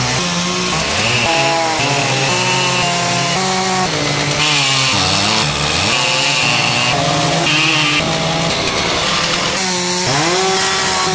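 Two-stroke chainsaw running and cutting into a large log, revving up and down so that its pitch keeps rising and falling.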